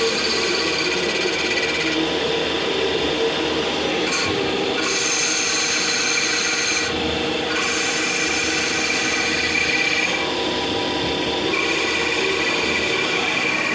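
CNC lathe cutting a drive plate for a CD70 motorcycle: a steady machining hiss with a high-pitched whine that changes every few seconds as the cut moves on.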